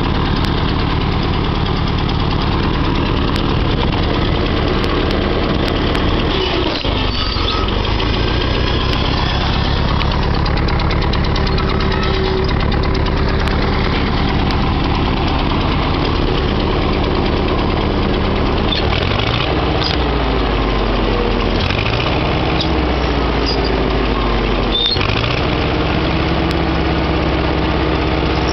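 Farmall Cub tractor's four-cylinder engine running steadily as the tractor is driven. In the last third its speed drops and picks up again a few times.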